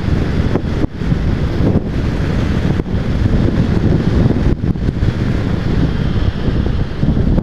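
Heavy wind buffeting the camera microphone on a moving Honda CB500X motorcycle, with the bike's parallel-twin engine and road noise under it. The rumble is loud and steady, with a few brief dips.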